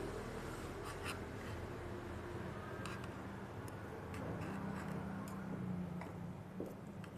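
Steel table knife sawing through steak and scraping against a cast-iron sizzle plate, with scattered sharp clicks of knife and fork tines on the iron, over a low hum.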